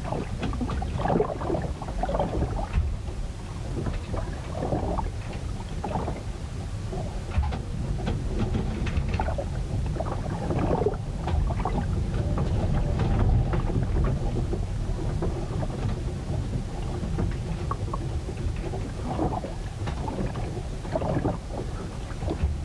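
Sea storm heard aboard a ship: a constant low rumble of wind and rough water, with irregular sloshing and splashing of waves.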